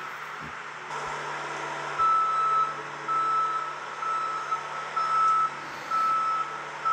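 Backup alarm on heavy equipment beeping steadily, about one beep a second, over the low steady hum of an engine running.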